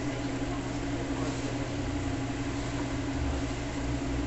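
Electric cheese slicer running, its motor and spinning blade giving a steady low hum.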